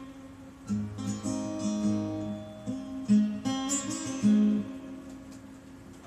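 Acoustic guitar being strummed and picked: several chords with low bass notes, then the last chord left to ring and fade out over the final second or so.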